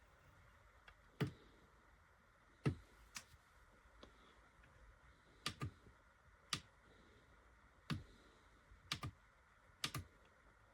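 Buttons on a sunrise alarm clock being pressed: about a dozen faint, sharp clicks at uneven intervals, some in quick pairs.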